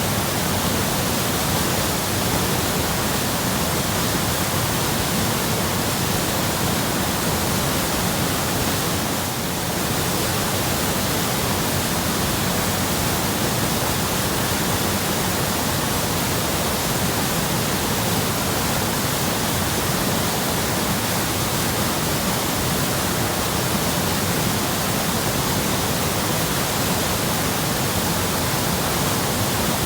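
Small waterfall on a rain-fed creek rushing steadily, a loud, even wash of water noise.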